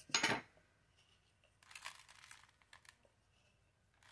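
Salt being taken up and sprinkled by hand over peeled potatoes in a plastic bowl: a short rustle at the start, then faint crinkly rustling around the middle, with a few small ticks after it.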